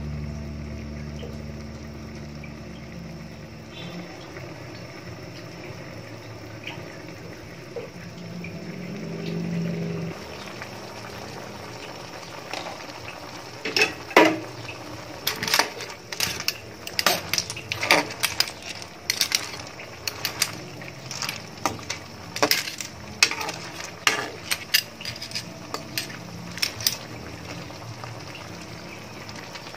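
A pot of clam soup boiling with a steady hiss. From about halfway through comes a long run of sharp clinks and clatters as the clams in their shells are stirred in the pot.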